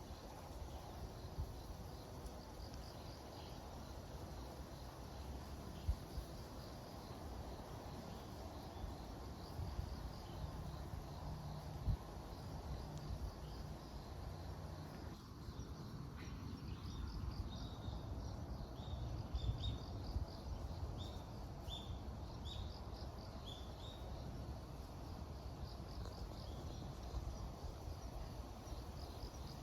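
Insects chirping in a mountain forest over a steady low rumble of wind on the microphone, with a run of short, falling chirps in the second half.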